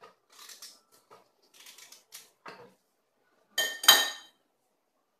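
Kitchen handling sounds: soft rustles and light taps as food is put into a plastic blender jar, then about three and a half seconds in, two sharp ringing clinks of glassware or dishes knocked together in quick succession.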